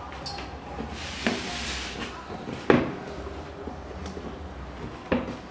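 Yeezy 700 V2 sneakers handled and moved about on a cardboard shoebox: a stretch of rustling about a second in, and three knocks, the loudest near the middle.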